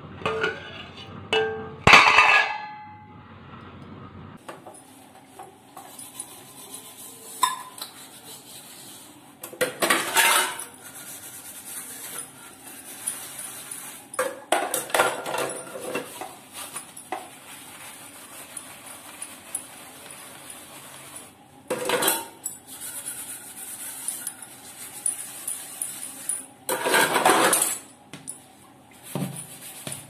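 Stainless steel plates clinking against each other as they are handled, then dishes being washed at a sink: steel bowls and plates clattering and being scrubbed in several separate bouts.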